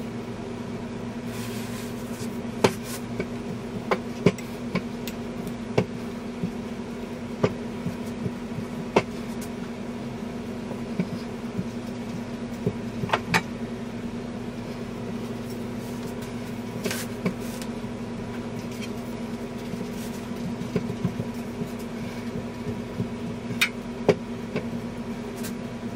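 A stainless steel rolling pin worked back and forth over dough on a silicone baking mat, giving scattered light clicks and knocks every second or two. Under it runs a steady low hum.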